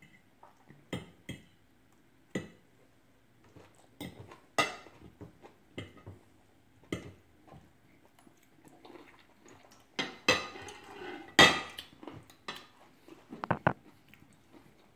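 Metal forks tapping and scraping on plates of food, in scattered sharp clicks that are busiest and loudest about ten to eleven seconds in.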